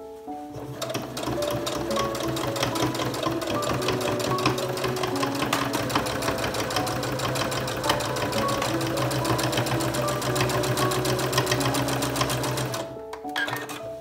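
Singer Quantum Stylist electric sewing machine stitching a seam at a steady fast pace, a rapid even run of needle strokes over a low motor hum. It starts about a second in and stops about a second before the end.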